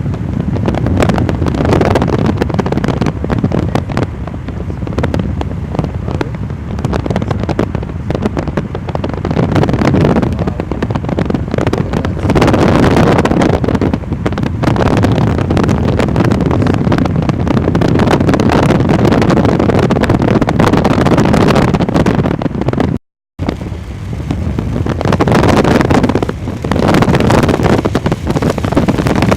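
Strong storm wind buffeting the microphone, a loud low rumbling roar that swells and eases in gusts. The sound drops out for a split second about three-quarters of the way through.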